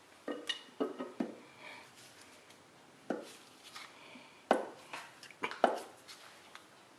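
Scattered sharp metal clinks and knocks of an aluminium cylinder head and its parts being handled and settled on a small-block Chevy V8 block. The clinks come in a quick cluster at first; the loudest are about four and a half and five and a half seconds in.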